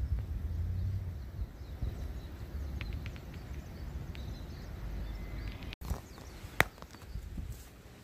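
Outdoor ambience: a low rumble with a few scattered light clicks and taps, and one sharp click about six and a half seconds in. The sound drops out for an instant shortly before it.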